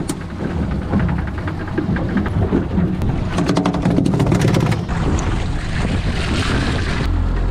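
Boat underway at sea, with water and wind on the microphone over a low steady rumble. About three seconds in there is a quick run of sharp knocks lasting under two seconds.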